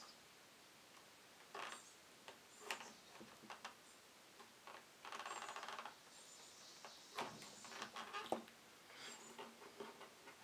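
Leather being hand-stitched: thread drawn through the leather with soft rasps, the longest about a second long, and a few sharp clicks of the needle, the loudest about eight seconds in.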